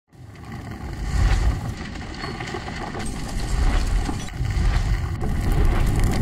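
A deep rumbling sound effect for animated flames, fading in from silence and swelling about a second in, then holding steady.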